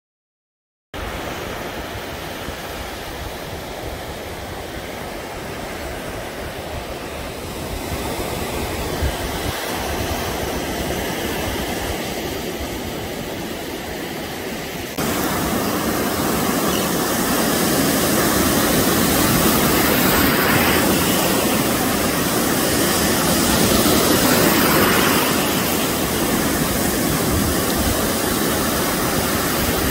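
Surf breaking and washing up on a sandy beach, a steady rushing noise that starts about a second in and gets louder about halfway through.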